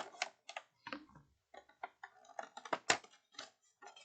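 Stiff game cards being handled and flipped through: a quick, irregular run of crisp clicks and rustles.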